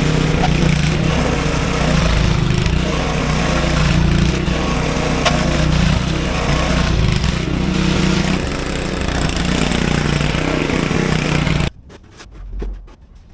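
Craftsman 5/24 snowblower's engine running steadily under load while clearing snow, then cutting off suddenly near the end.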